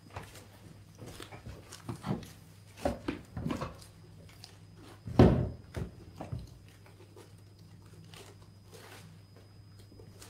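Props being handled: scattered knocks and rustling, with one louder thump about five seconds in, then only a low steady hum.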